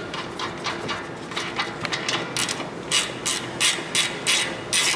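Hand socket ratchet clicking as the nut is run down onto the upper control arm's ball joint stud. The clicks are faint and quick at first, then louder and even, about three a second, from about halfway in.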